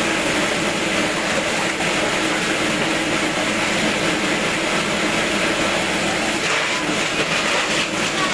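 Plastic-waste crusher machine running, a steady loud mechanical drone.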